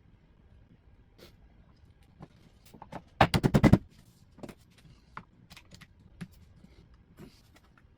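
A quick rapid-fire burst of about seven sharp knocks lasting under a second, followed by scattered light taps and clicks.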